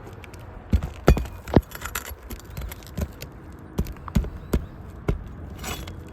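Flat bar prying roofing nails out from under asphalt shingles: irregular sharp metal clicks and knocks, with a stretch of scraping near the end.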